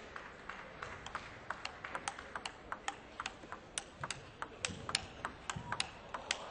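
Table tennis rally: a quick, even run of sharp clicks, about three or four a second, as the celluloid ball strikes bats and table.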